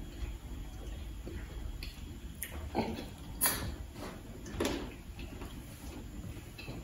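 Eating noises: a person chewing and smacking his lips over a mouthful of pap and ogbono soup eaten by hand, with a handful of short, wet mouth sounds in the middle of the stretch.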